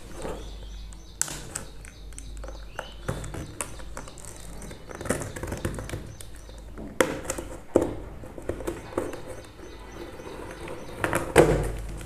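Hands handling and opening a cardboard box: irregular scraping, rubbing and tapping on the cardboard, with a few sharper knocks and the loudest handling near the end.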